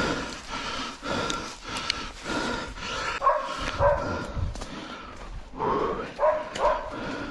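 Dogs barking in short bursts, a few barks together a little before the middle and again near the end, over a scuffling, rustling background.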